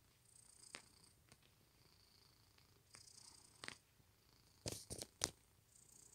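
Domestic cat purring quietly and steadily while kneading a soft blanket. Its paws make scratchy rustles every few seconds, and a few sharp clicks come in a cluster about three-quarters of the way in as the claws catch in the fabric.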